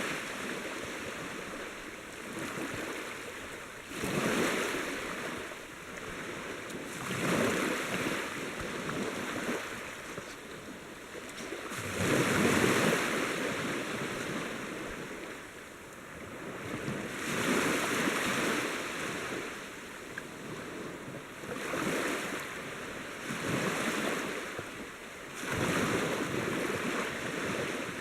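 Sea waves washing in, each surge of water swelling and fading every few seconds.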